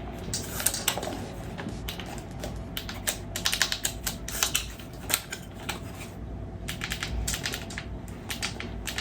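Irregular clicks and taps of hard parts being handled and fitted on an airsoft rifle, coming in quick clusters.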